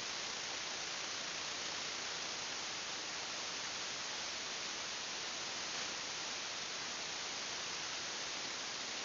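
Steady, even hiss with no other sound: the electronic self-noise of the camera's microphone.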